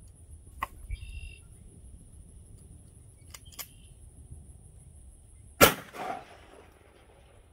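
A single loud, sharp crack about five and a half seconds in, followed half a second later by a softer, trailing second burst. Faint clicks and a brief high chirp come earlier.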